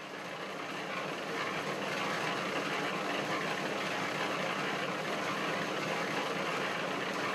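A steady rushing noise with no clear pitch fades in over the first couple of seconds, then holds level.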